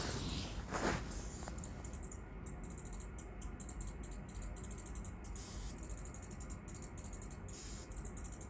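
Fast, uneven run of sharp clicks with a thin, high squeak through them, several a second, starting about two seconds in; the source, in a shed, is unidentified, either an animal or a machine such as a pool pump. Two short rustling noises come before it.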